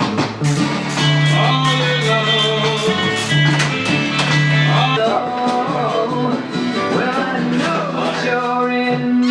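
Background music: a guitar-driven blues-rock song with a steady beat and a singing voice.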